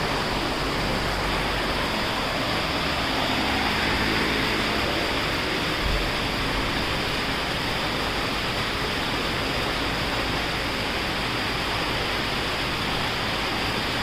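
Steady, even rushing noise with no distinct events, apart from a faint low thump about six seconds in.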